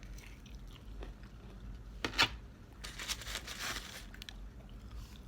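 A person biting and chewing fast food close to the microphone, with a sharp crunch about two seconds in and a stretch of crackly crunching a second later.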